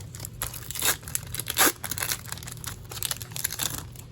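Pokémon booster pack wrapper being torn open and crinkled, with two louder rips about a second and a second and a half in.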